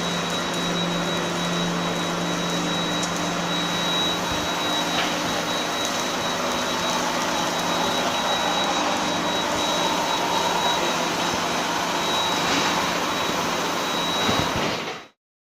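Bulldozer-blade induction heating line running: a steady industrial machine noise with a thin, steady high whine over it, cutting off suddenly near the end.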